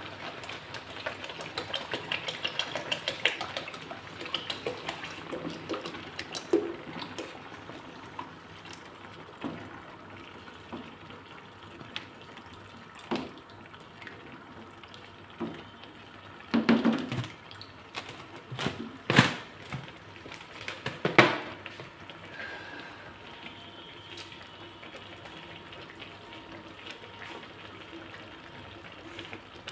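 Milk poured in a stream into a pan of cooked grated carrots and rice, a splashing pour loudest over the first few seconds, then quieter. A few sharp knocks come around the middle.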